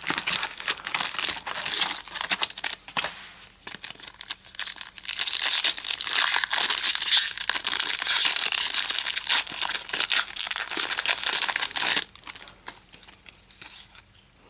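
Foil trading-card pack wrapper being torn open and crumpled: a dense crinkling that is loudest from about five seconds in and dies down about twelve seconds in.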